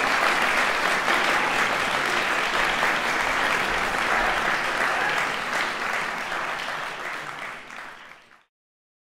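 Audience applauding steadily, the clapping fading out near the end and then cutting off to silence.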